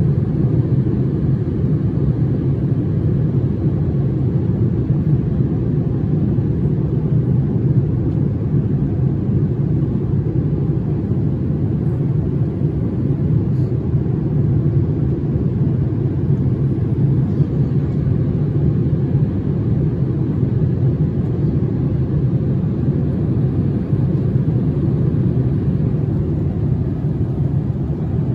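Steady cabin noise inside a Boeing 787-8 airliner in cruise: a constant low rumble of engines and airflow.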